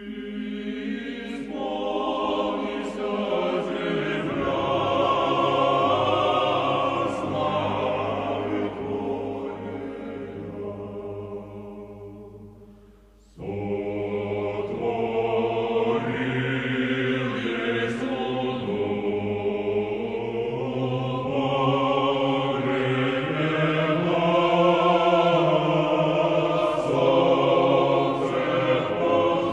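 Choir singing slow, sustained chant in several voice parts. Around thirteen seconds in it fades away, and a new passage starts abruptly.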